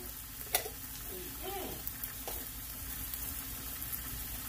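Chopped onions and green bell peppers sizzling steadily as they sauté in a stainless steel pan, with two sharp clicks, about half a second and two seconds in.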